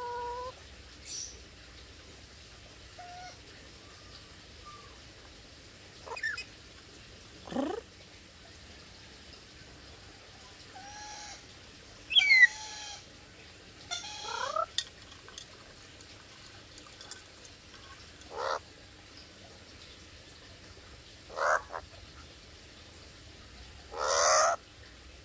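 Black-capped lory (Lorius lory) calling every few seconds: short whistled notes, rising and falling glides, and harsh squawks. The loudest is a sharp rising call about halfway, and a long harsh squawk comes near the end.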